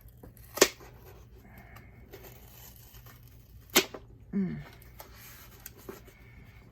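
A mailing package being pulled open by hand: two sharp snaps with rustling and tearing of the packaging between them, and a short strained grunt about four and a half seconds in.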